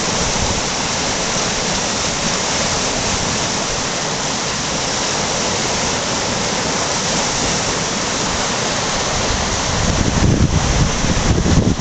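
Flooded creek rushing over and against a low-water bridge, a steady loud rush of churning water. Near the end, wind buffets the microphone in irregular low rumbles.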